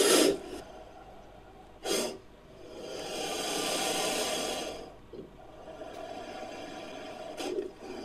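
Made-up creature sound effect for a fictional shelled snake, edited from snake and crocodilian recordings: a short sharp burst about two seconds in, then a longer noisy exhale-like sound lasting about two seconds, and a quieter stretch ending in another short burst near the end.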